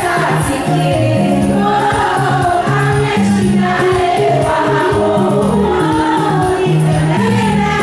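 A group of women singing together to music, over a bass line that steps between held notes and a steady percussion beat.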